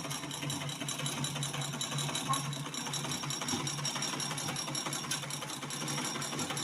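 Black-head Butterfly manual treadle sewing machine running unthreaded as the foot pedal is rocked, a steady rapid ticking clatter of the mechanism.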